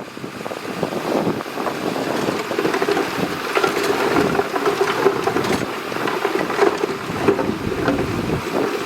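Shantui DH17C2 crawler bulldozer working: its diesel engine runs steadily under many short clanks and knocks.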